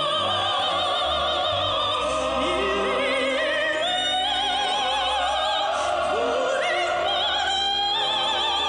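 Music: a singing voice holding long notes with wide vibrato over orchestral accompaniment, in an operatic style.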